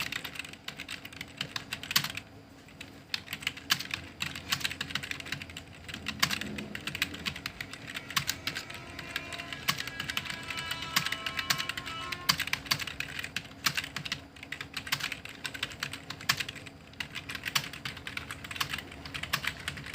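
Computer keyboard being typed on at a steady medium pace, a quick irregular stream of key clicks.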